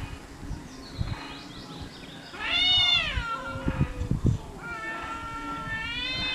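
Cat yowling in an aggressive face-off with another cat: a loud yowl that rises then falls about two and a half seconds in, then a long drawn-out yowl from about four and a half seconds in that climbs in pitch near the end.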